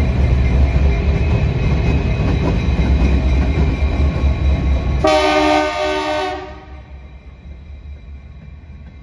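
Diesel locomotives running past close by with a heavy engine rumble. About five seconds in, a locomotive air horn sounds one chord blast lasting a little over a second, and after it the engine sound is much fainter and more distant.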